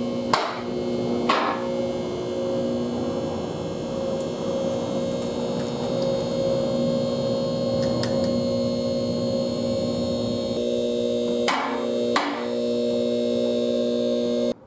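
Two-post car lift raising a car: its electric hydraulic pump motor running with a steady hum, with a few sharp clanks from the lift's metal arms and posts, two near the start and two near the end.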